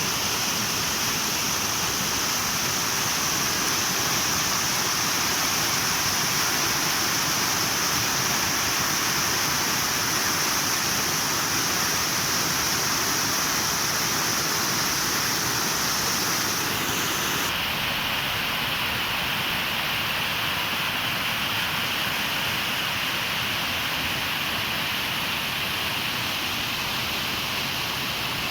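River water pouring over a waterfall: a steady rushing. About two-thirds of the way through, its high hiss drops to a somewhat lower one.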